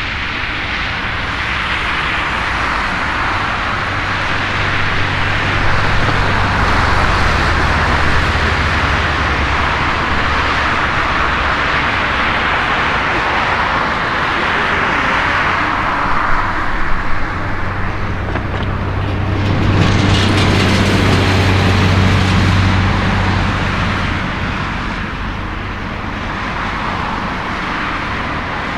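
Airbus A330 jet engines at takeoff power: a continuous loud roar, swelling brighter and louder about twenty seconds in, then easing off.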